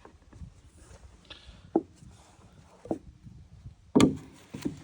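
Wooden deck board being set and knocked into place on a treehouse deck: four separate knocks at uneven gaps, the loudest about four seconds in.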